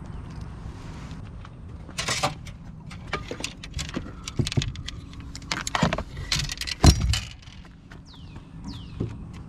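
Keys jangling and gear being handled in an open car trunk: an irregular run of clicks, rattles and knocks, the loudest a sharp knock about seven seconds in.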